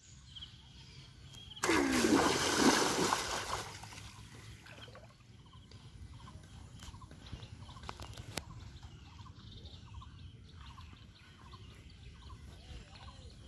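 A bamboo teta fishing spear is thrust into shallow floodwater with one loud splash about two seconds in. After it comes quieter sloshing as legs wade through the water.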